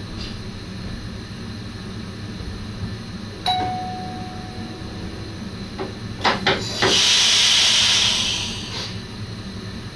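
Inside the cab of an NS SGM Sprinter electric train: over a steady low rumble, a single chime rings out and dies away. A few seconds later come several sharp clicks and then a loud burst of compressed-air hiss lasting about two seconds.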